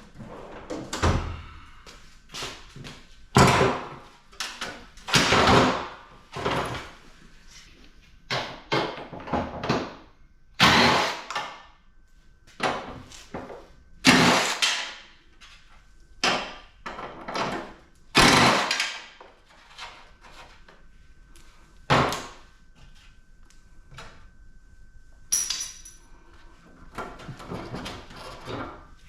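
Irregular metal clanks, knocks and scrapes of a PTAC air conditioner's sheet-metal housing and parts being pried at and pulled apart, with one ringing metallic hit a little past three-quarters of the way through.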